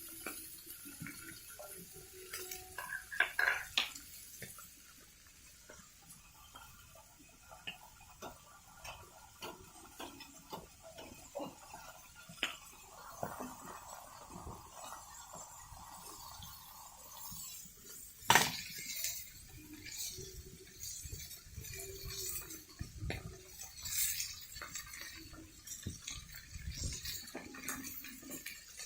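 Metal cookware and utensils clinking and knocking now and then while food is cooked and seasoned, with one sharp clank about 18 seconds in.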